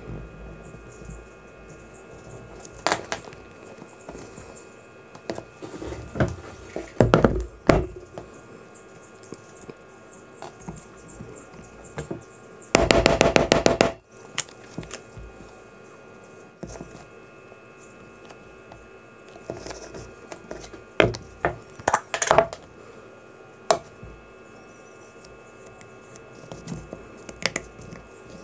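Leatherworking tools and materials handled on a workbench: scattered knocks and taps, with a rapid run of clicks lasting just over a second about halfway through.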